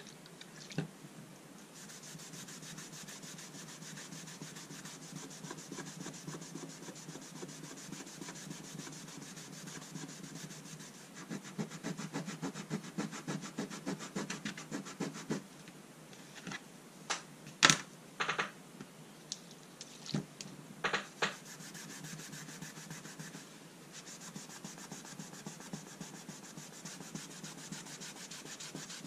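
Cloth rubbing along a boxwood and brass folding rule, cleaning it, with a run of quicker back-and-forth strokes in the middle. A few sharp clicks come just after, the loudest of the sounds.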